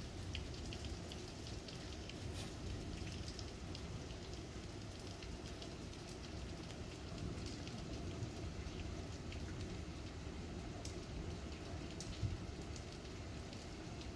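Heavy rain falling steadily, with scattered individual drops ticking close by; one louder tick about twelve seconds in.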